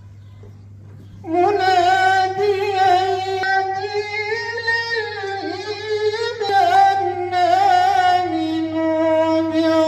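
A man's melodic Quran recitation, amplified through a microphone. It starts about a second in, with long held notes and wavering ornaments. A steady low hum runs underneath.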